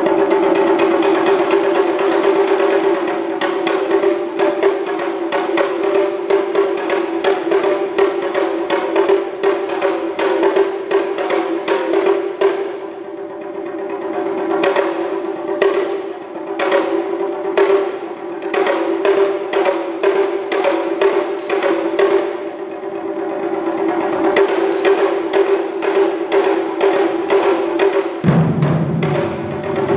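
Ensemble of Japanese taiko barrel drums struck with wooden bachi in a fast, driving rhythm, with softer passages between loud ones. A deeper, lower drum sound comes in near the end.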